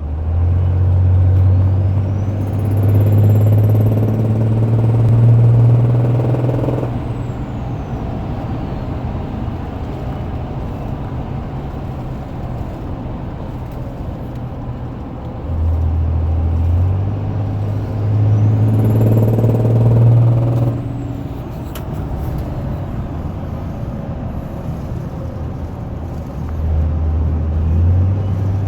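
6.7 Cummins turbo-diesel inline-six running, with a rapid popping noise that the owner is trying to track down. A deep hum swells and fades three times over the engine sound.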